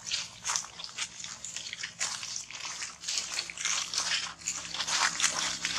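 Footsteps crunching and rustling through dry fallen leaves: irregular crackles that get denser and louder in the second half.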